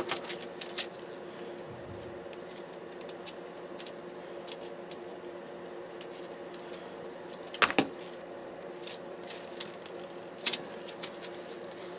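Scattered clicks and rattles of small plastic and metal parts from a disassembled DVD drive being handled by hand, with the loudest cluster about seven and a half seconds in. A steady low hum runs underneath.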